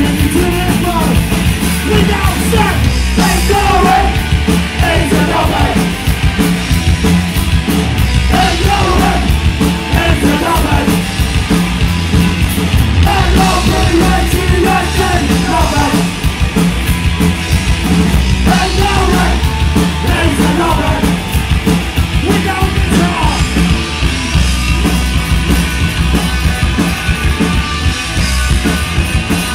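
Punk rock band playing a song live, loud and fast, with drums and guitars and shouted vocals coming in every few seconds.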